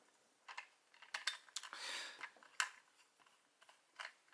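Small hard plastic toy pieces being handled: scattered light clicks and a brief rustle near the middle, then one sharper click.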